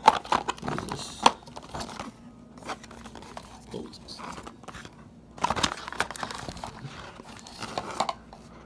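Cardboard GoPro Hero5 Black box and its inner tray being handled and pulled apart: cardboard rustling and scraping with scattered sharp knocks, busiest near the start and again after about five seconds.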